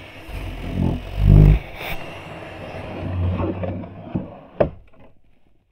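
Wooden floorboards heard through a contact microphone resting on them: deep thumps and rumbles from movement on the floor, loudest about a second and a half in. Two sharp knocks come about four seconds in, then the sound fades out.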